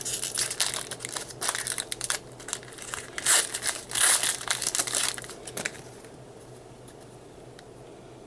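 Foil wrapper of a trading-card pack being torn open and crumpled, a crinkling, crackling rustle for about six seconds that then stops.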